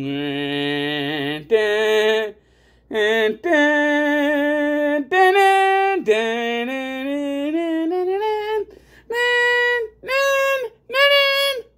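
A single voice singing unaccompanied: long held notes that step up and down in pitch, with short breaks between phrases, ending in three short separate notes.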